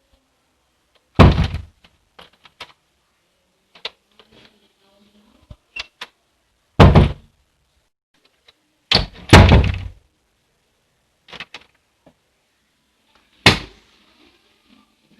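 A door being opened and shut several times. It gives four loud thuds as it closes, one about a second in, one midway, a quick double thud a couple of seconds later and one near the end, with smaller clicks between them.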